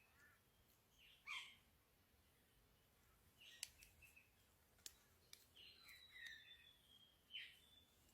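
Faint bird calls: several short chirps sweeping downward in pitch, about a second in, around three and a half seconds in, and again near the end, with a thin whistle between them. A few sharp clicks fall in the middle.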